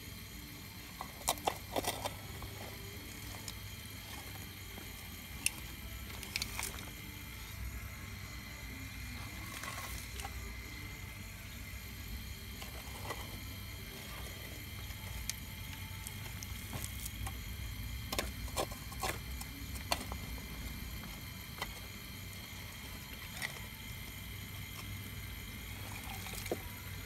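Radio-controlled model Cat 349 excavator digging shale: a steady high whine from its motors over a low hum, with scattered sharp clicks and clatters of shale pieces under the bucket, a cluster of them about a second in and more about two-thirds of the way through.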